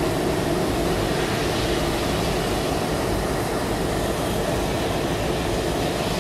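A WDM-3D diesel-electric locomotive running close by, its engine giving a steady, loud rumble mixed with the noise of the train.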